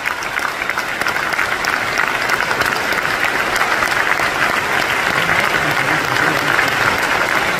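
Concert-hall audience applauding: dense, sustained clapping that swells slightly.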